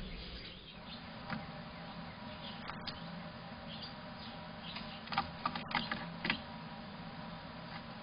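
European starling at a feeder dish: a handful of short, sharp clicks and taps about five to six seconds in, over a faint steady hum.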